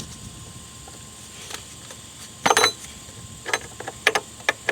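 Scattered metal clinks and knocks as a steel battery hold-down bracket is worked loose and pulled out from beside a car battery. The loudest clatter comes about halfway through, with several sharper clicks near the end.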